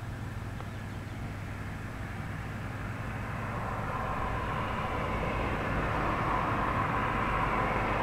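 A low steady hum, with a vehicle's rushing noise growing steadily louder through the second half as it approaches.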